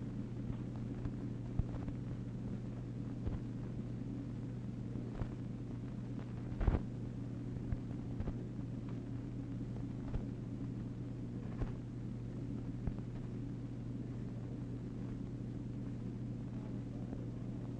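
Old optical film soundtrack noise: a steady low hum and hiss with scattered clicks and pops at irregular intervals, the strongest about a third of the way in.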